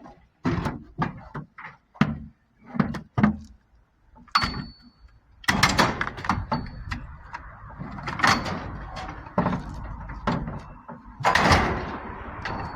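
Scrap metal being shoved and loaded into a truck: a run of sharp knocks and thuds, a brief high metallic squeal, then a longer stretch of scraping and clattering as pieces are pushed into place.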